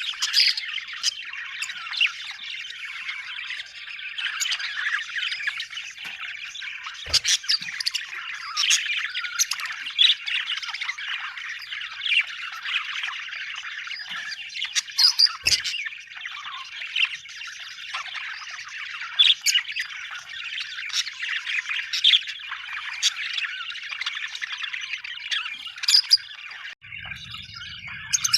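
A flock of budgerigars chattering: dense, continuous warbling and chirping, broken by frequent louder short calls.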